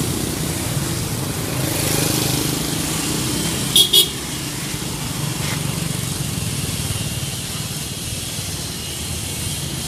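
Steady street traffic with motorbikes going by, and two quick toots of a vehicle horn close together about four seconds in, the loudest sound.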